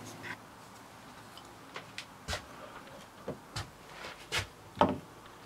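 A schedule 40 PVC pipe and a PVC end cap being handled, making about half a dozen light plastic knocks and clicks, the loudest near the end.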